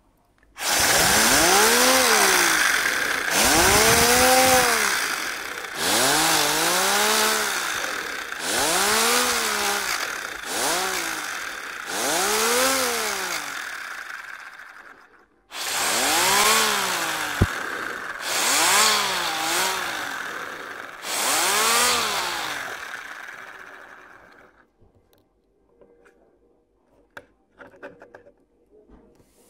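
3D-printed PLA vane air motor whirring as air is blown through a straw into its inlet. With each puff the rotor spins up, so its whine rises and then falls, about every two seconds, over a rush of air. There is a short break partway, and it stops near the end, leaving a few faint clicks.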